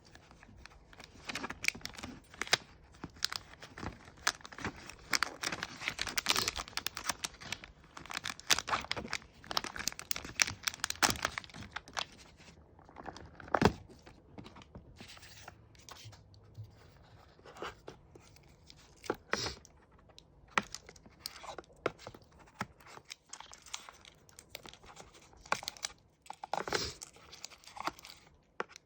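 Packaging being crinkled and torn open by hand: a dense run of crackling and tearing for about the first twelve seconds, then sparser rustles and clicks with one sharp click about halfway through.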